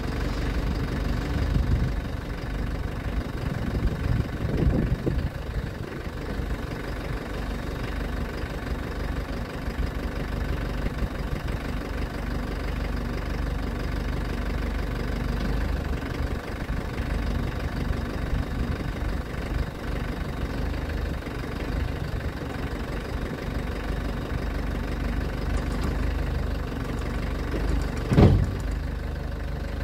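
Engine of a Nissan Topy 10 truck-mounted aerial platform idling steadily with a knocking note while the hydraulic boom is lowered. A single sharp clunk sounds near the end.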